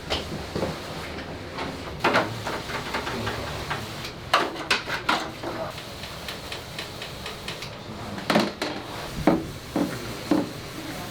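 Irregular clatter of hard objects being handled: scattered knocks and sharp clicks, some in quick runs, over a steady low background hum.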